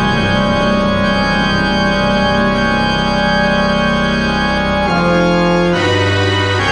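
Background music of sustained organ chords, the harmony shifting about five seconds in and again near the end.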